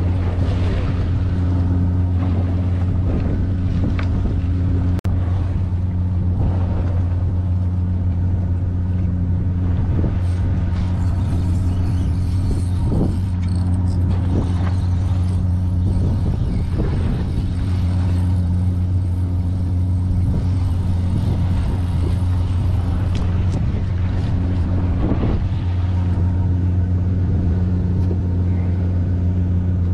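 Fishing boat's engine running at a steady, unchanging pitch, a constant low drone, with a faint knock or two on top.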